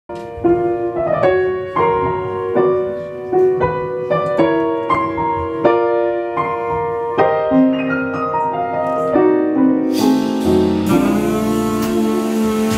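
Jazz piano playing an unaccompanied introduction in separate struck notes and chords; about ten seconds in, the band comes in with cymbals and a bass line.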